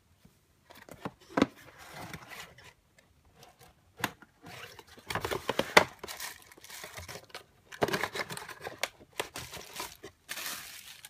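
Unboxing handling noise: clear plastic wrapping and bags crinkling and a cardboard box being opened and rubbed, in irregular bursts with a few sharp taps.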